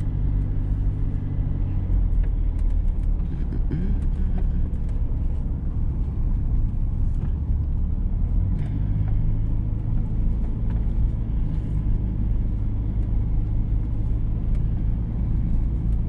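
GMC Sonoma pickup's engine running and its tyres on the road, heard from inside the cab while driving. It is a steady low hum, and the engine note changes about eight and a half seconds in.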